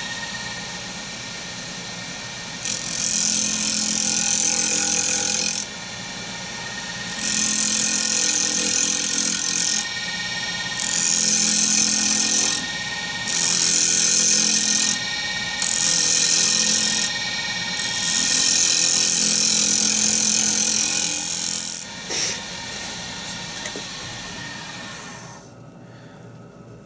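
Wood lathe running with a steady whine while a radius square cutter takes light cuts on the spinning wood-and-resin medallion blank to bring it round: six hissing scraping passes of a few seconds each. The lathe stops near the end.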